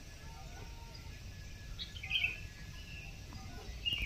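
A bird calling in short chirps, about two seconds in and again near the end, over faint, steady low background noise.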